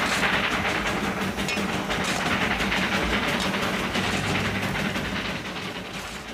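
Darjeeling Himalayan Railway narrow-gauge steam locomotive on the move, heard from its cab: a dense, steady clatter of the running engine that fades out near the end.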